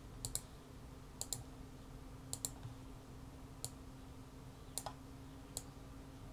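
Faint computer mouse clicks, about one a second, several heard as a quick press-and-release pair, over a faint steady hum.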